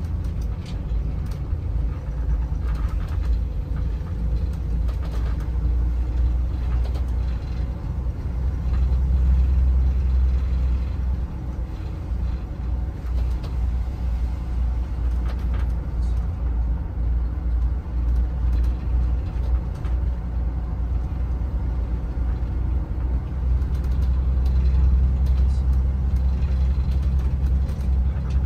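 Low, steady rumble of a shuttle bus heard from inside the cabin, with scattered light rattles. It grows louder twice, about a third of the way in and near the end.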